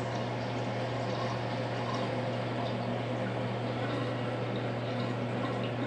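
Water running steadily into a basin and over its drain, an even rushing noise, with a low steady hum underneath.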